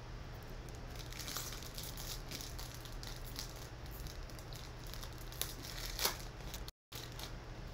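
Foil trading-card pack wrapper being handled and torn open: soft crinkling and rustling, with a couple of sharper crackles about five and six seconds in.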